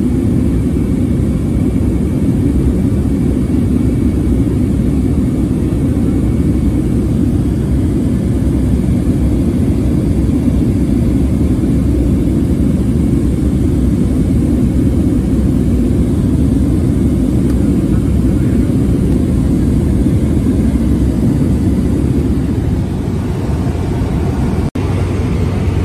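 Steady loud drone of a small propeller aircraft in flight, heard from inside the passenger cabin: engine and propeller noise mixed with airflow. The sound breaks off for an instant near the end.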